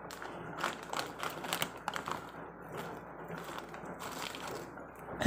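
Plastic snack packet of shrimp crackers crinkling and crackling irregularly as it is pinched open and handled.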